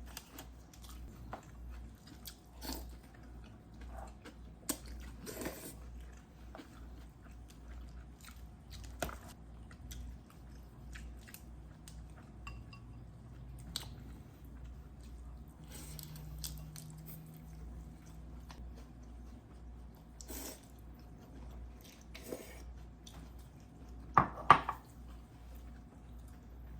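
A person chewing and crunching food close to the microphone, with scattered small clicks of dishes and utensils and a louder knock near the end.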